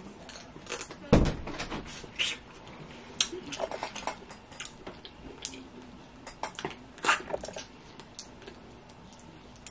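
Steamed blue crab being picked apart by hand and eaten: a string of short sharp clicks and snaps of shell and mouth sounds, with a dull thump about a second in.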